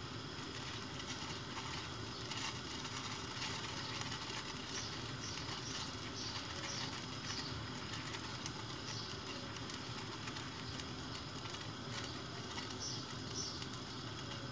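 Water simmering in a stainless steel pot: a steady soft bubbling hiss. Faint short high chirps recur a few times in the middle and near the end.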